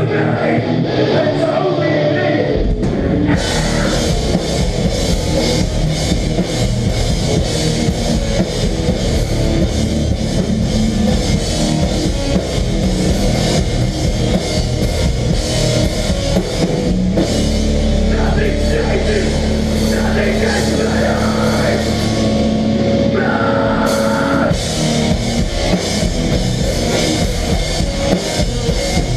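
Live melodic hardcore band playing an instrumental passage: distorted electric guitars, bass and a drum kit with cymbals. After a lighter guitar opening the full band comes in about three seconds in, and a long low note is held for several seconds later on.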